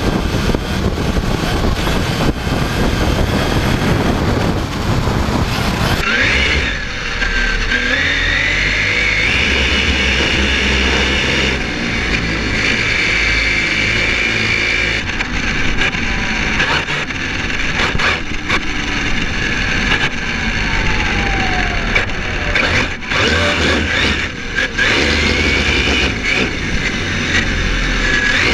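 Onboard sound of a Kyosho MP9e TKI3 electric 1/8 buggy at speed. Steady wind and road noise rushes over the camera, and from about six seconds in the motor's high whine rises and falls with the throttle.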